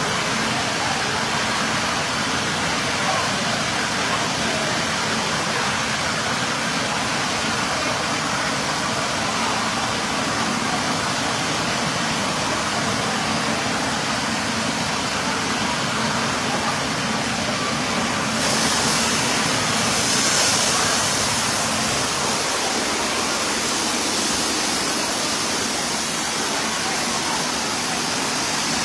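Steady rushing and splashing of water pouring from an indoor pool's overhead falling-water pipes and spouts. About two-thirds of the way through it turns brighter and hissier.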